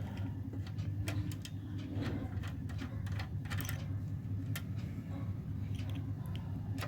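A screw being undone from a desktop PC's metal case: light, scattered clicks and scrapes of the screwdriver and screw over a steady low hum.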